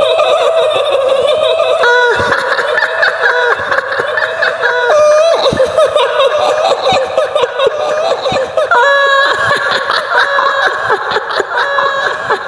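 A woman's high-pitched laughing cackle, drawn out and wavering in pitch, in the style of the kuntilanak ghost's laugh.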